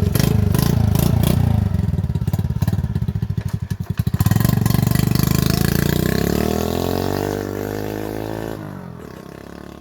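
Honda Super Cub C50's small single-cylinder four-stroke engine running, rising in revs about four seconds in. Its pitch then falls and the sound fades over the last few seconds.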